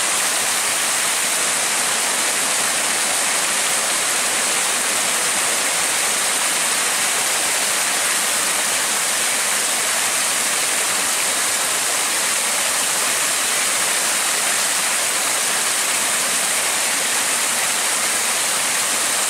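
Steady rushing of flowing river water, an even hiss with no change.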